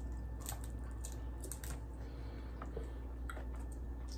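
Irregular small clicks and crackles of Dungeness crab shell being picked apart at the table and the meat being eaten, over a low steady hum.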